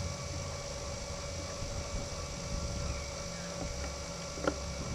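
Outdoor background of a steady low rumble with a constant faint hum and a few faint chirps, and a single sharp knock about four and a half seconds in.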